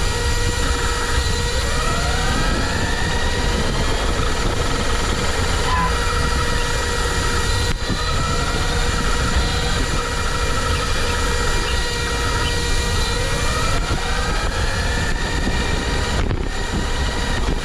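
RC car with a 2500 KV brushless motor driving, its motor whine rising in pitch several times as it speeds up. Under it runs a steady low rumble and hiss, with a few constant high tones.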